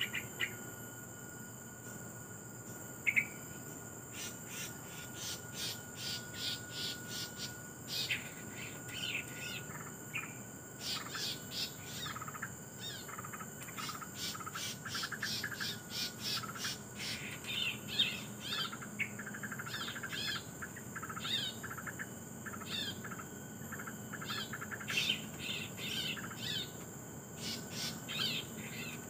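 Small birds calling: many short, quick chirps, some high and some lower and bubbly, coming thicker from a few seconds in. Under them runs a steady high insect drone.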